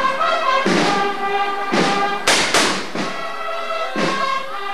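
Processional brass band playing held chords over a drum beat of about one strike a second, with two sharper crashes close together about two and a half seconds in.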